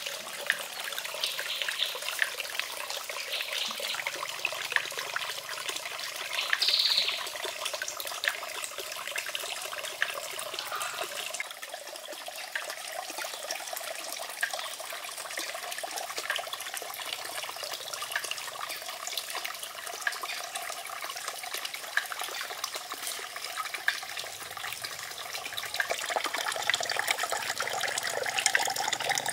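Water steadily trickling and splashing from a small garden waterfall and wooden water wheel into a shallow concrete pond, with one short high-pitched sound about seven seconds in.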